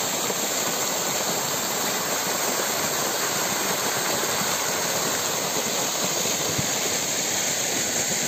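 Pond fountain jets spraying and splashing into the water, a loud, steady rushing hiss.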